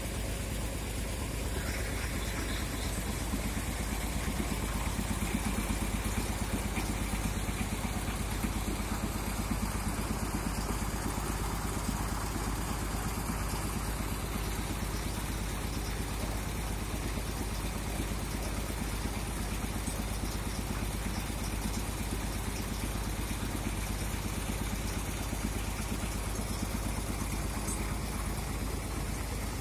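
Engine of a P&H truck-mounted crane running steadily while the crane holds and swings a suspended load, a little louder about four to nine seconds in.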